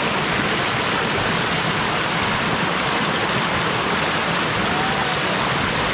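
River water rushing and splashing over rocks in a small rapid: a steady, even rush of white water.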